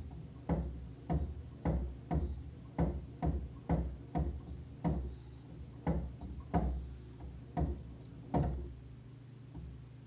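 Force-feedback motor driven hard one way and then the other, its controller knocking at each swing about twice a second over a steady electrical hum. A high thin whine sounds briefly near the end.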